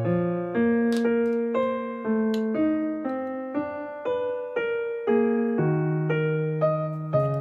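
Background piano music: a melody of notes struck about twice a second, each fading before the next.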